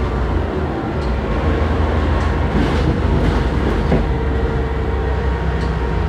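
A moving bus heard from inside the passenger saloon, making a really loud noise: a steady heavy low rumble with rattling from the body and fittings, and a few sharp clicks and rattles around the middle.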